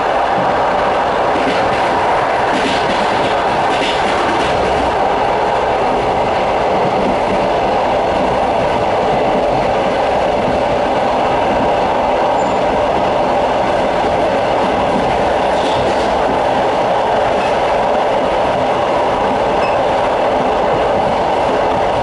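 Passenger train running at speed, heard from on board a carriage: a steady, loud noise of wheels on rails, with a few faint knocks now and then.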